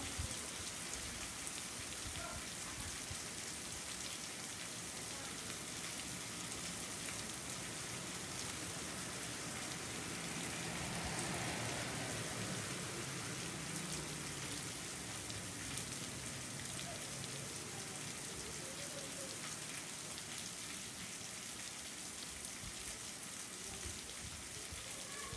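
Steady rain falling, an even hiss that swells slightly about halfway through.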